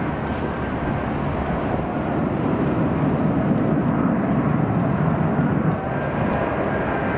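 Airbus A380-841's four Rolls-Royce Trent 900 turbofans and airframe on final approach with gear down. A steady deep jet rumble with a faint whine, growing louder in the middle as the aircraft nears.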